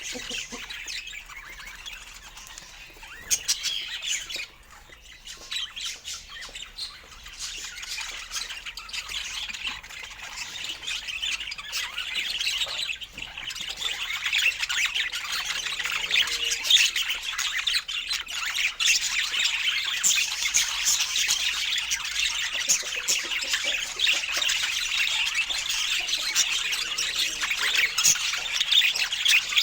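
Pet budgies (budgerigars) chattering: a dense, rapid run of high chirps and warbles that gets louder and busier about halfway through.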